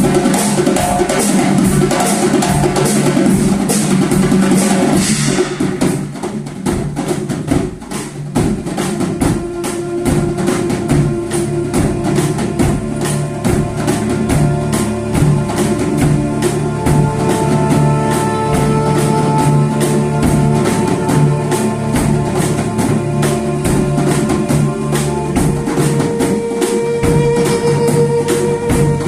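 A drum ensemble playing a fast, steady rhythm of many hand-drum strokes over a melody with long held notes. It is louder and brighter for the first five seconds or so, then thins out.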